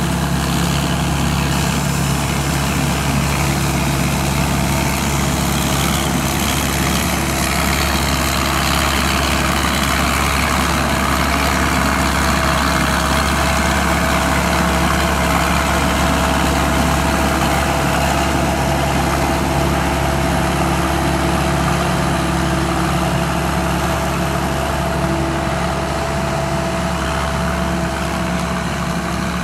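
SAK KM-D combine harvester's turbocharged 260-horsepower engine running steadily, with a thin steady whine over its low drone.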